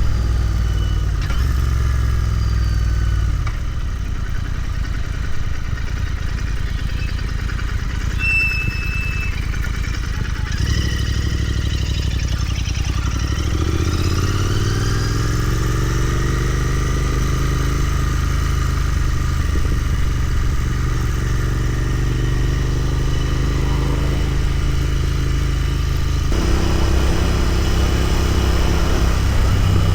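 Royal Enfield Continental GT 650's parallel-twin engine running under way, with wind noise on the microphone. The engine note climbs through the middle and changes suddenly about 26 seconds in, as if at a gear change.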